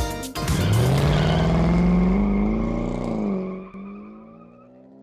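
A car engine revving up, its pitch rising over about two seconds, then dropping back and fading out, after a short tail of music.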